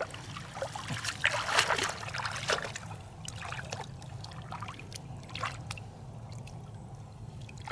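Water splashing and trickling in irregular bursts, busiest between about one and three seconds in, then a few smaller splashes.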